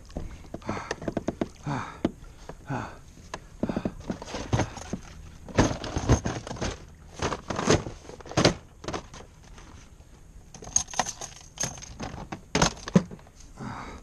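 Irregular knocks, thuds and clatter as a heavy, muddy battery pulled from the water is handled and shifted about on a plastic kayak. The loudest knocks come in a cluster in the middle and again near the end.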